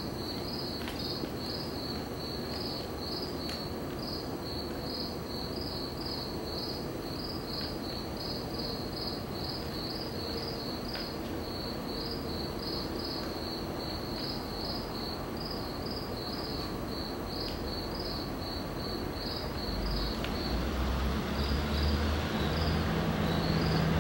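Crickets chirping steadily, about two or three chirps a second, over a steady background hiss. In the last few seconds a low rumble with a steady hum builds as a Norfolk Southern freight train's diesel locomotive approaches.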